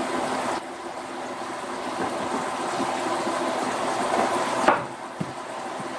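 Flour-dredged chicken tenders frying in a pan, a steady sizzle, with a brief louder flare about four and a half seconds in.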